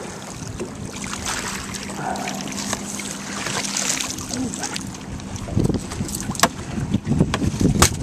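A hooked striped bass splashing at the surface beside a boat as it is netted, over a steady low hum from the boat's motor. About two-thirds of the way through, knocks and clatter as the net and fish are swung aboard onto the deck.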